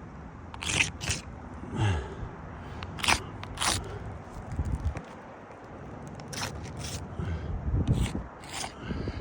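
Asphalt roof shingles scraping and crackling in a string of short, irregular strokes as they are lifted and handled.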